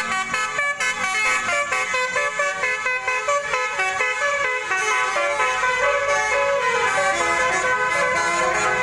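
Bus 'telolet' horn, a multi-tone musical air horn, playing a quick tune of short stepped notes that give way to longer, sliding notes after about six seconds.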